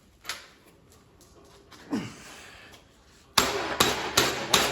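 A click and a short scrape, then from about three and a half seconds in, four quick hammer blows on sheet metal, each with a brief metallic ring.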